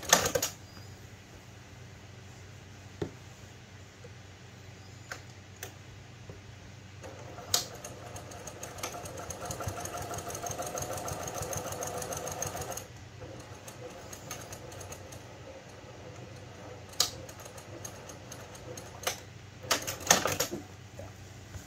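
Brother PQ1500SL high-speed straight-stitch sewing machine sewing a row of long (5 mm) quilting stitches through a layered cloth pad. It runs steadily, gets louder for about six seconds in the middle, and has a few sharp clicks, mostly near the end.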